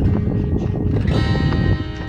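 Background music with held notes; a new chord comes in about a second in.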